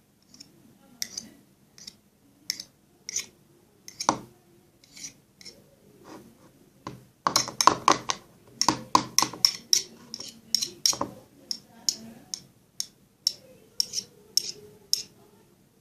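A spoon clicking and knocking against a mixing bowl while colour is stirred into a glue slime base: irregular light clicks, with a quick busy run of them about halfway through.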